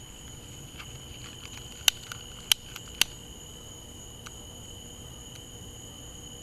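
A lighter being flicked to light a firework: several sharp clicks, three loud ones about two to three seconds in, over the steady trill of crickets.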